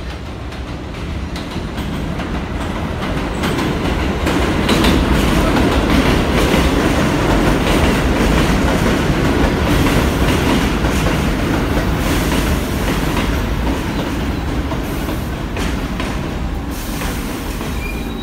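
R46 subway train pulling into an elevated station: a running rumble with wheels clattering over the rail joints. It grows louder over the first few seconds as the train comes alongside, then eases off as the train slows to a stop.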